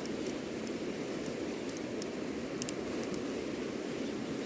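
Steady rushing of flowing river water, with a few faint, scattered high ticks.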